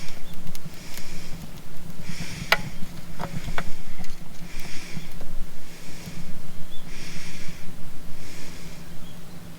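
Rhythmic scraping or swishing strokes, about one a second, with a few sharp clicks near the middle, over a steady low hum.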